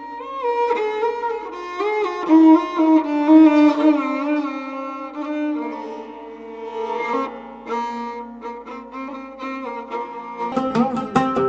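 Instrumental music: a bowed string instrument plays a melody that wavers and slides between notes. About a second before the end, quick plucked or struck string notes come in.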